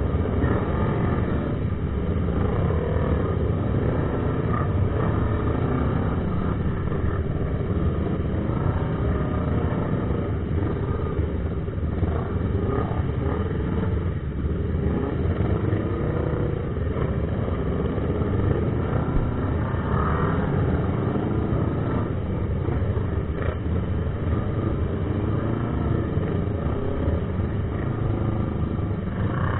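Many sport motorcycle engines running together in slow, packed traffic, a steady din with engine pitch rising and falling as riders work their throttles.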